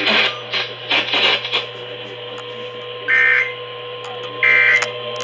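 Emergency Alert System SAME digital data bursts: two short, harsh warbling buzzes about a second and a half apart, beginning about three seconds in, over a steady electronic hum. The bursts are short, as end-of-message codes are.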